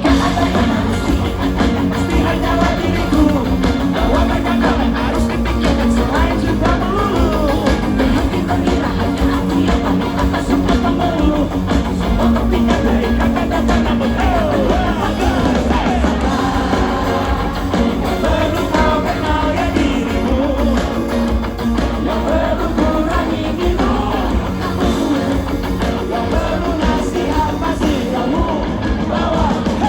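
Live band playing a song with singing, electric guitar, bass and drums, loud and steady throughout.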